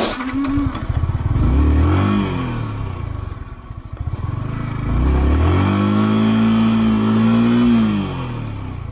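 Motorcycle engine revved hard twice, the second time held high for a couple of seconds before dropping back, as the bike labours for grip on ice and snow.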